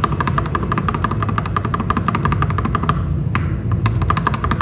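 Shift key on a mechanical keyboard with lubed and filmed Prevail Epsilon linear switches, pressed over and over in quick succession with clicky-clacky keystrokes; about three seconds in, the strokes thin out to a few separate presses.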